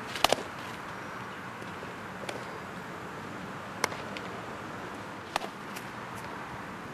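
Sharp cracks of baseballs being hit and caught in fielding practice: a quick double crack at the start, then single cracks about every one and a half seconds, over a steady outdoor hiss.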